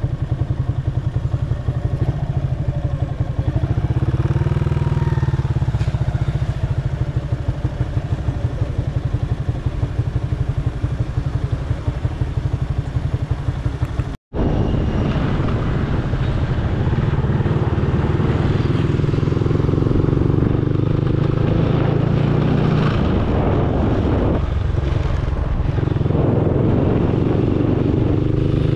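Motorcycle engine running with a steady, rapid pulse, heard from on the moving bike. The sound cuts out suddenly for a moment about fourteen seconds in, then carries on.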